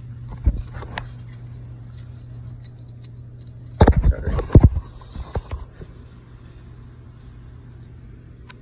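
Knocks and rubbing from a phone being handled, with a loud cluster of clatter about four seconds in and a couple of lighter knocks in the first second, over a steady low hum.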